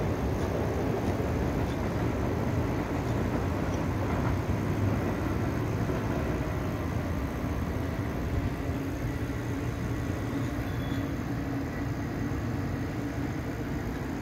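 Steady hum of city traffic, an even wash of engine and tyre noise with no single vehicle standing out.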